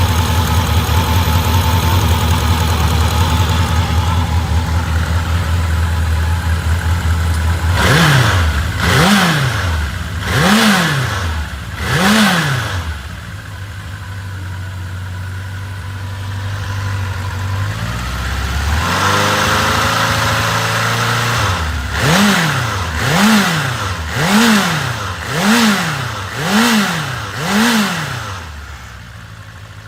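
Honda CB750F (RC04) air-cooled inline-four engine running at idle, then revved in four quick blips, held at a raised speed for a few seconds, and blipped six more times before dropping back near the end.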